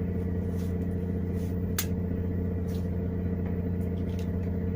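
A boat's engine running steadily with a low, even drone. There is a single sharp click about two seconds in.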